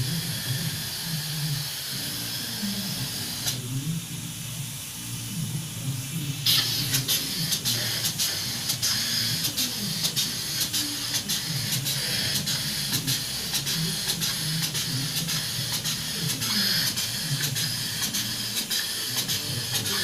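Spray foam insulation gun hissing as it sprays, stopping a few seconds in and starting again about three seconds later, with sharp clicks through the spray once it resumes. A steady low hum runs underneath.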